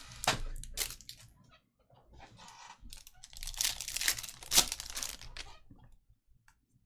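Foil trading-card pack wrapper being torn open and crinkled, in a few sharp bursts near the start and a longer crinkling stretch in the middle.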